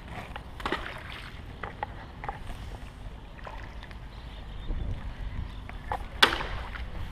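Low wind rumble on the microphone, with scattered small knocks and one loud sharp knock about six seconds in.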